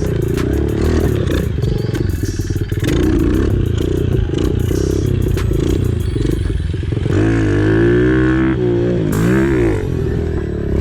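Pit bike engine, fitted with its quieter stock exhaust, being ridden hard over a dirt track: the engine note chops on and off the throttle, then from about seven seconds in revs up and down quickly several times.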